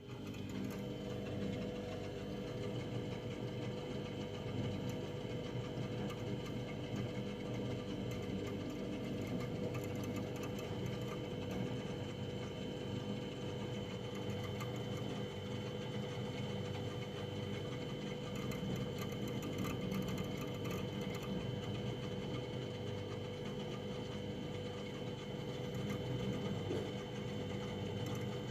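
Household freezer running: a steady mechanical hum with a constant tone and a fainter high whine, unchanging throughout.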